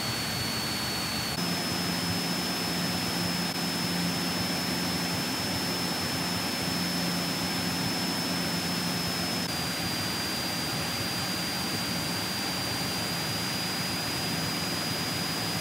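Cessna 172 Skyhawk in level cruise: the steady drone of its single piston engine and propeller mixed with rushing wind, with a thin steady high whine over it. The sound shifts slightly about a second and a half in and again about halfway, where the shots are cut.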